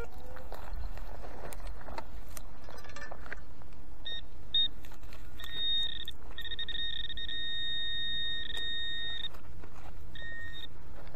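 Garrett Ace 250 metal detector giving its target tone: a few short high beeps from about four seconds in, then a steady tone held for about three seconds, and one last short beep near the end.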